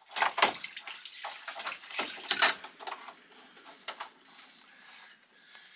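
Seawater splashing and gushing in through a boat's open through-hull fitting as the paddlewheel speed/temperature sensor is pulled out. It starts suddenly, surges loudly several times over the first couple of seconds, then settles into a quieter, steady flow.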